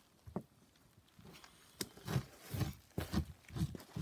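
A scallop shell scraping meat off a salmon skin on a plywood board, in repeated short strokes about two a second that begin about two seconds in, after a single soft knock near the start.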